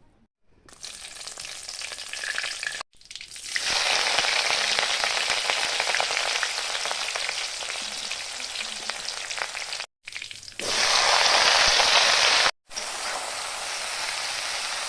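Food frying in hot oil in a pan: a steady crackling sizzle, cut into several short segments by brief silent gaps, and loudest from about four seconds in and again around eleven seconds.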